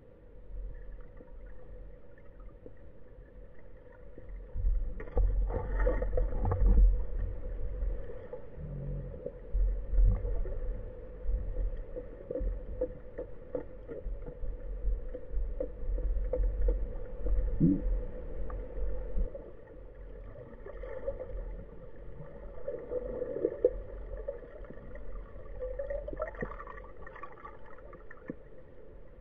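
Underwater sound picked up by a diver's camera: low rumbling water movement against the housing, with a steady high hum and scattered clicks. The rumble swells and grows louder from about five seconds in, then eases off after about eighteen seconds.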